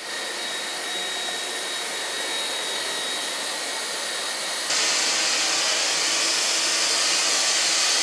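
Dreame T30 cordless stick vacuum running, a steady whir with a faint high whine. A little under five seconds in, it cuts to the Corvan K18 cordless stick vacuum running, louder and hissier.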